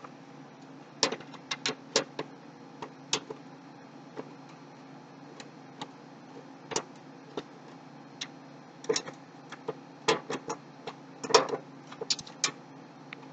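Irregular sharp clicks and small metal taps of a screwdriver tightening screws in a computer case, coming in clusters.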